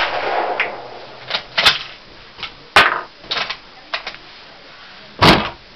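6.5×55 Swedish Mauser bolt-action rifle: the echo of a shot fades away, then the bolt is worked with a string of sharp metallic clacks. About five seconds in comes another loud, sharp rifle shot.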